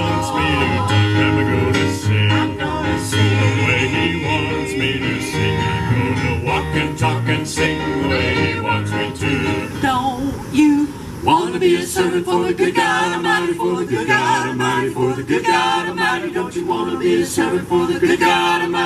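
Gospel vocal group of men and women singing in harmony through a PA, backed at first by keyboard and electric guitar. About eleven seconds in, the instruments drop out and the voices carry on a cappella.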